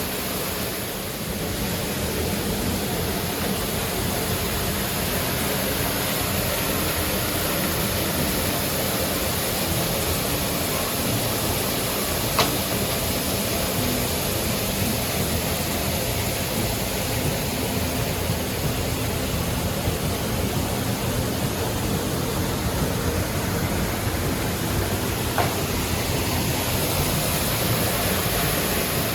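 Steady rushing of a waterfall, a wide curtain of water pouring over a limestone ledge. Two brief clicks, about a third and near the end.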